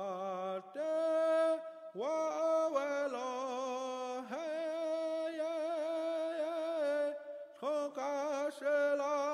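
Native American-style chant sung by one voice, holding long notes with vibrato; each phrase opens with a quick upward scoop into the note, about six phrases in all.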